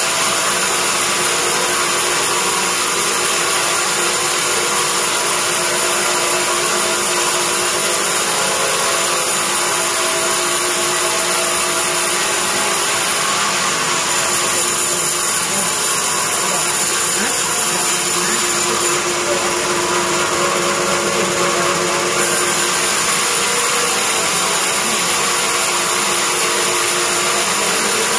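Sawmill band saw running steadily while it saws a hard teak beam fed on its carriage.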